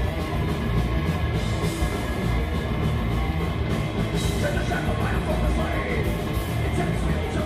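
Live rock band playing loud: distorted electric guitars, bass guitar and drum kit together in a dense wall of sound.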